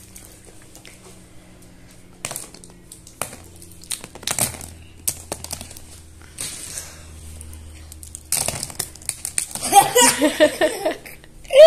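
Small plastic building-stick pieces clicking and rattling as they are handled and pushed about, in scattered taps at first and a denser clatter near the end, with a brief voice near the end.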